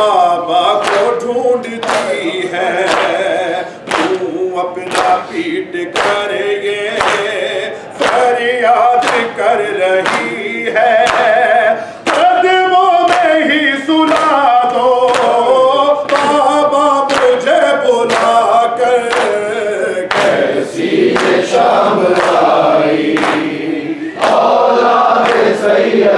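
A men's congregation chants an Urdu noha in chorus with a lead reciter. Their open-handed chest-beating (matam) keeps a steady beat of about one strike a second.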